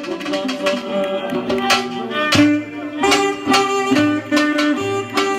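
Live band playing Turkish folk dance music: a held lead melody over plucked strings, with a steady low beat and regular drum strikes.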